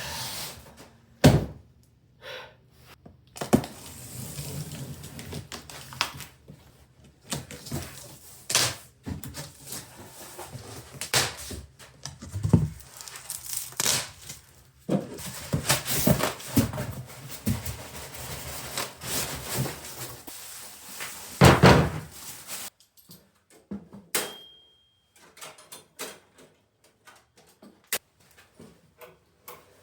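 Unboxing a table saw: irregular thuds, knocks and scraping as the cardboard box and packing are opened and handled, with the handling noise thinning to a few sparse clicks after about 22 seconds.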